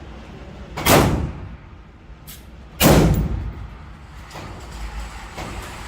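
Two gunshots about two seconds apart, each with a short echoing tail, followed by a few fainter sharp reports.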